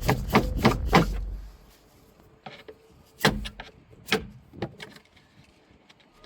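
Staple gun firing into wood in a quick run of sharp knocks, about three a second, for the first second. A few separate knocks follow, further apart.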